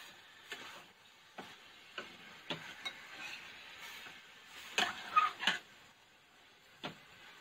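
Metal spoon knocking and scraping against a stainless steel frying pan as pieces of chicken are stirred and turned: irregular clinks, with a quick cluster of louder ones about five seconds in.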